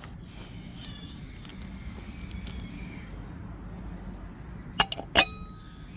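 Light metallic clinks of engine parts and tools being handled, then two sharp metal clanks about half a second apart near the end, the second ringing briefly, over a steady low hum.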